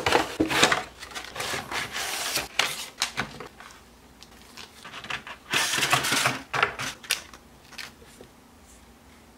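Clear plastic packaging crinkling and rustling as it is handled, with many small clicks, in two bouts: one right from the start and one just past the middle, then a few scattered clicks.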